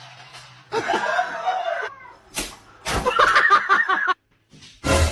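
A person laughing in quick bursts, after a short pitched vocal call, with a sharp knock near the end.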